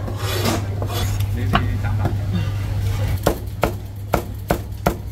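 Meat cleaver chopping crispy-skinned roast pork belly on a thick wooden chopping block. There is a chop or two about a second and a half in, then a quick run of about six sharp chops, two to three a second, from about three seconds in. A steady low hum runs underneath.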